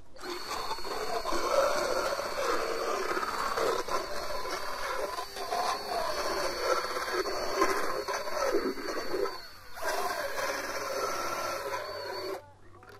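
Motorised equine dental float grinding down a horse's teeth: a steady high motor whine over a rasping grind that wavers as the burr works along the teeth. It cuts out briefly near ten seconds in, starts again, and stops shortly before the end.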